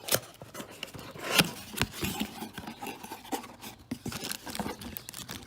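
Packaging of a replacement part being opened by hand: a busy run of rustling and scraping with sharp clicks and snaps, the loudest in the first two seconds.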